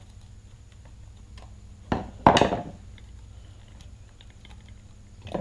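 Parts and tools being handled on a workbench: scattered light clicks, then a loud clatter a little over two seconds in, as of something set down hard or dropped, over a steady low hum.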